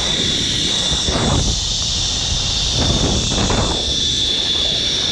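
Zipline trolley's steel pulleys running fast along twin steel cables: a steady high whine over a rushing hiss. Wind rushes on the microphone and swells about a second in and again around three seconds.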